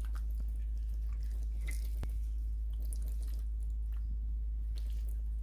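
Soft wet squelching and small clicks as gloved fingers pull soft, collagen-rich meat off smoked beef feet, with one sharper click about two seconds in. A steady low hum runs underneath.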